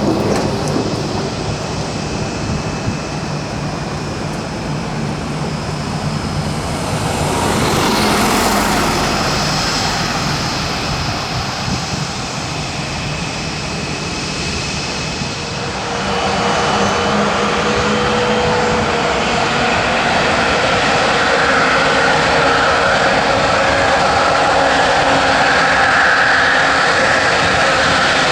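Jet engines of a Boeing 787-9 Dreamliner running steadily. There is a brief rushing swell about eight seconds in. About halfway through the sound grows louder, with a steady whine, and stays loud.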